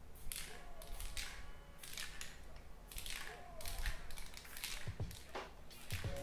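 Aerosol spray paint can hissing in a quick series of short bursts, sprayed onto canvas.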